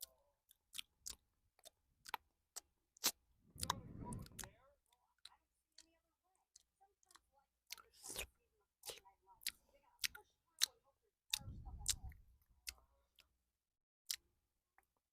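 Close-miked wet mouth clicks and smacks from finger licking, irregular and sharp, with two brief low rustles about four and twelve seconds in.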